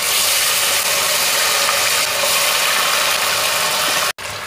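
Chicken pieces frying in hot oil in a pot: a loud, steady sizzle. It breaks off for an instant near the end and then carries on a little quieter.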